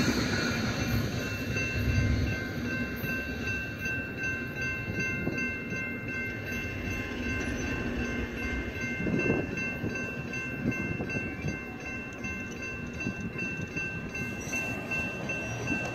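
A railroad crossing bell rings steadily, its strikes evenly spaced, over the low rumble of a Union Pacific train that is fading away. The bell stops near the end.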